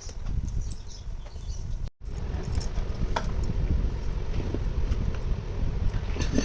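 Small plastic toy pieces being handled, giving scattered light clicks and taps over a steady low rumble, with a brief silent break about two seconds in.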